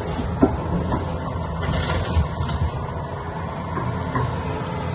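Heavy diesel construction machinery running steadily with a low rumble, and a single sharp knock about half a second in.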